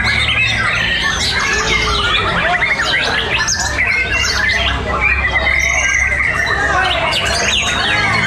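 Many caged white-rumped shamas (murai batu) singing at once in contest, a dense, loud, unbroken tangle of overlapping whistles, sweeping notes and rapid warbled phrases.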